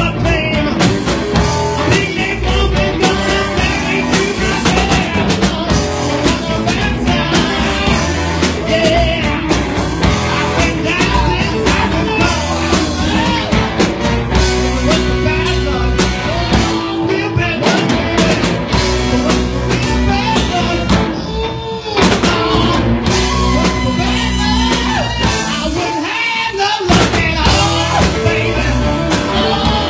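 Live blues-rock band playing, with drum kit and electric guitars, and a male voice singing. The music briefly drops in level about two-thirds of the way through, then comes back in.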